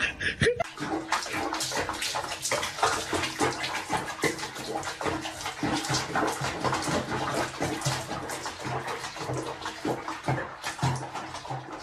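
Water splashing and sloshing in a sink basin where a cat is being bathed, with irregular splashes.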